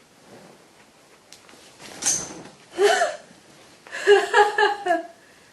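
A man with a cold gasping as he works up to a sneeze: a sharp breathy intake about two seconds in, a short voiced 'ah' about a second later, then a quick run of halting voiced catches about four seconds in.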